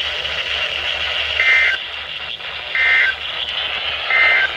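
NOAA Weather Radio end-of-message SAME data bursts: three short, buzzy two-tone digital chirps about a second and a half apart, marking the end of the severe thunderstorm warning. Steady radio hiss runs underneath.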